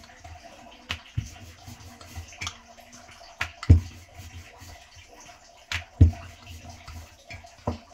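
Wooden rolling pin rolling out a ball of paratha dough on a stone countertop: a low rolling rumble broken by irregular knocks and taps, the loudest about a third and three quarters of the way through.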